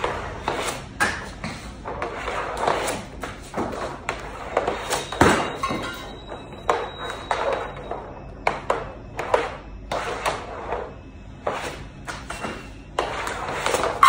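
Ice hockey pucks being shot again and again: sharp, irregular knocks and thuds of stick on puck and of pucks hitting the net, targets and garage wall. The heaviest thud comes about five seconds in.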